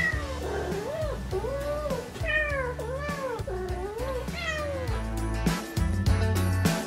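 Domestic cat meowing repeatedly at a closed door, about six meows in a row, each rising and falling in pitch, with background music underneath.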